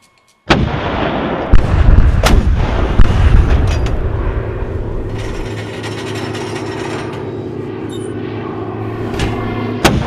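Anti-aircraft gunfire: heavy guns firing with sharp reports about a second and a half, two and three seconds in and again near the end, over a dense continuous rumble. A steady low drone sets in underneath from about four seconds in.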